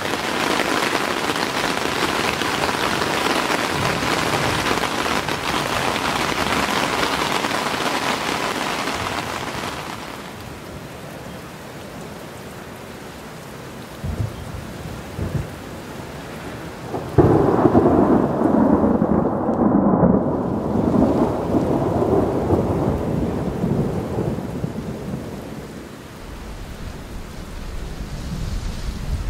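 Steady heavy rain on tent fabric for about ten seconds. After a quieter stretch with a couple of low thumps, a long rumble of thunder starts suddenly and rolls on for several seconds before fading.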